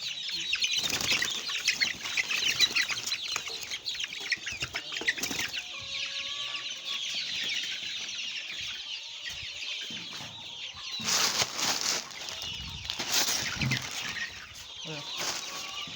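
A flock of six-week-old chickens cheeping in a dense, high-pitched chorus, with loud bursts of wing flapping, strongest about eleven and thirteen seconds in.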